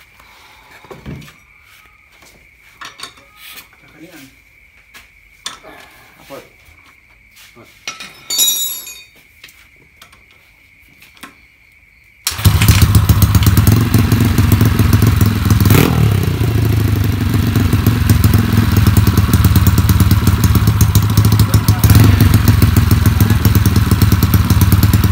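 Faint clicks and knocks of hands and tools on the bike, then about halfway through the bored-up 200cc Yamaha Mio's four-stroke single-cylinder engine starts suddenly and runs loudly through its aftermarket racing exhaust, with a quick throttle blip a few seconds after it catches.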